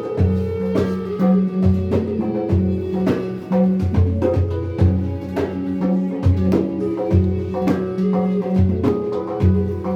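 Hang (steel handpan) and pimak improvising together: ringing struck metal notes over a low, steadily pulsing bass tone.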